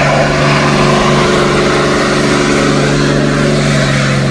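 Pickup truck engine held at steady high revs while the truck spins its rear tyres in donuts, with loud tyre and engine noise throughout.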